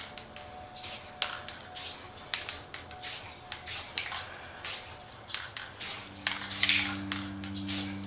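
Aerosol spray-paint can sprayed in short, quick hisses, one after another at an uneven pace, the bursts a little longer and louder near the end.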